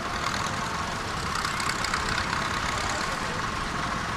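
Small vintage tractor engine running steadily as the tractor drives slowly past, with voices in the background.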